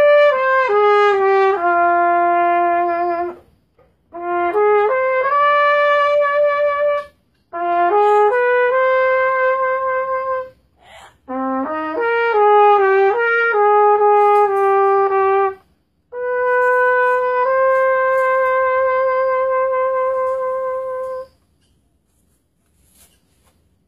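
Solo trumpet playing a slow melody in five phrases, each broken off by a short pause for breath, the last one a long held note.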